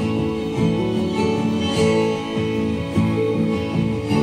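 Music led by an acoustic guitar, the kind of programme material a multizone loudspeaker array reproduces for one listening zone.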